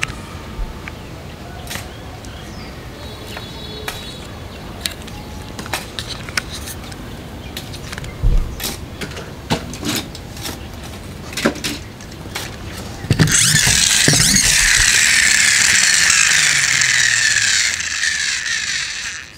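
Plastic toy monster trucks click and knock as they are handled. About two-thirds of the way through, a toy's friction-motor gearbox whirs loudly for about five seconds, then fades as the flywheel winds down, its pitch slowly falling.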